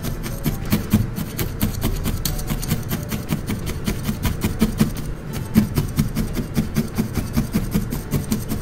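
A felting needle stabbing again and again through a ball of wool into a bristle brush mat. It makes a quick, even run of scratchy ticks, about six a second.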